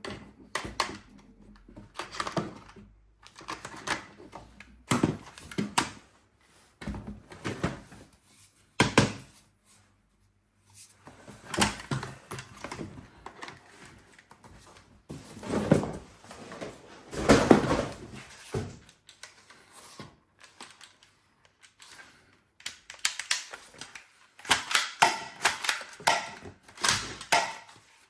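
Vintage toy guns being handled: irregular clicks, clacks and knocks of hard plastic and metal parts, with short runs of quick clicking, thicker toward the end.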